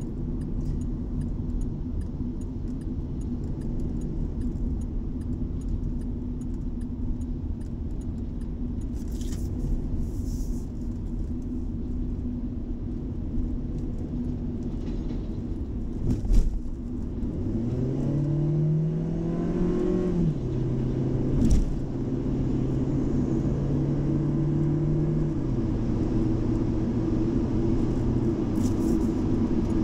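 A moving car's engine and road rumble. About two-thirds of the way through, the engine note rises as the car accelerates, drops at a gear change, and then holds steady before easing off. Two short knocks are heard, one just before the acceleration and one just after the gear change.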